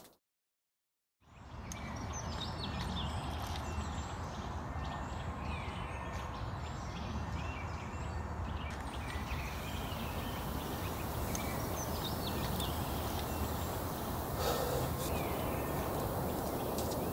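Outdoor ambience: a steady low rumble and hiss with faint bird chirps over it, beginning after about a second of dead silence.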